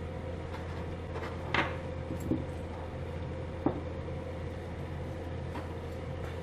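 A few light clicks and taps of small metal parts being handled on a workbench, three of them about a second and a half, two and a half, and nearly four seconds in, over a steady low hum.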